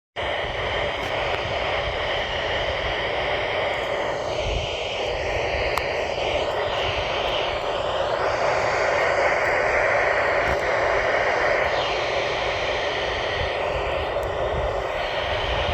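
Steady radio static hiss from a weather radio tuned to a NOAA Weather Radio frequency, with faint traces of a weak, distant WXK30 broadcast fading in and out beneath the noise.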